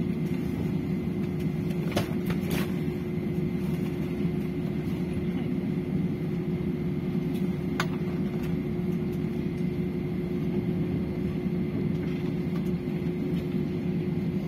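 Steady cabin rumble of an Airbus A320-214 rolling slowly along the runway after landing, engines at idle, with a constant hum running under it. A few faint clicks come about 2 and 8 seconds in.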